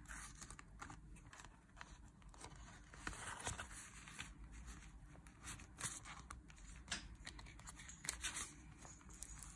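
Faint rustling of paper banknotes and a clear plastic zipper envelope being handled, with scattered small clicks and crinkles.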